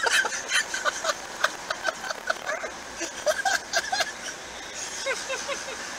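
Men laughing hard in a car, a quick run of breathy bursts of laughter that tail off near the end, over steady road noise.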